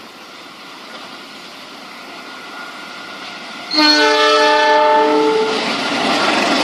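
Argo Wilis train approaching with a rumble that grows louder, then its locomotive air horn sounds one loud multi-note chord about four seconds in, lasting about a second and a half. The loud rush of the train passing follows.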